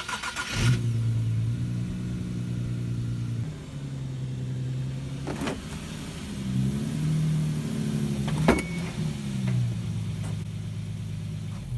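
Infiniti G37 sedan's 3.7-litre V6 running at low revs as the car creeps up onto plastic drive-on ramps, its pitch stepping up and down. Two sharp knocks come about halfway and about two-thirds of the way in.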